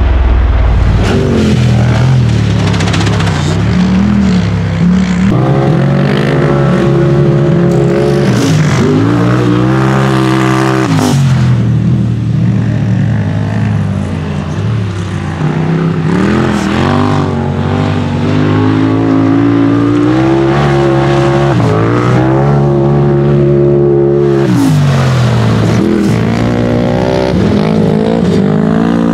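Off-road vehicle engine at full throttle, its pitch climbing through long pulls and dropping sharply when the throttle is let off, about eleven seconds in and again about twenty-four seconds in.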